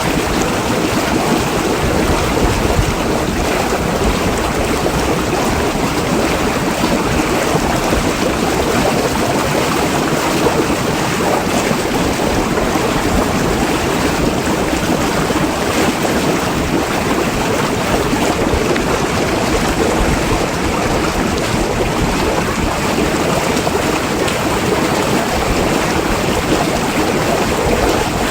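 Steady rush of churning water, an even loud hiss with no breaks.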